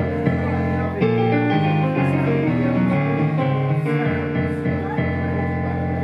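Small jazz band playing live: a Gibson ES-350 archtop electric guitar, an electric bass guitar and a keyboard. They play steady chords over a walking bass line in a bebop blues.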